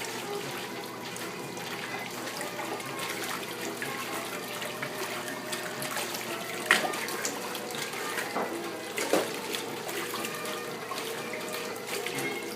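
Water sloshing and splashing in the tub of a 1930s Wardway Standard wringer washing machine, over a faint steady hum, with a sharp knock about seven seconds in and a smaller one about two seconds later.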